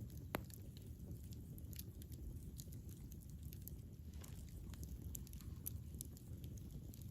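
Campfire burning: a steady low rumble of flames with scattered sharp crackles and pops from the burning wood, the loudest pop about a third of a second in.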